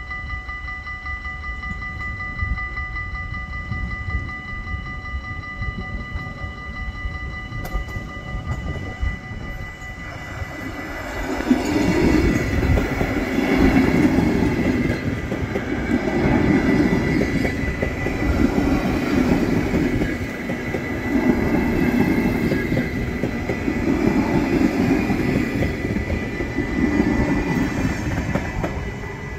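A train rolling past on the track, its wheels clattering over rail joints. The clatter grows loud about ten seconds in and beats roughly every two and a half seconds. Before that there is a steady whine of several held tones.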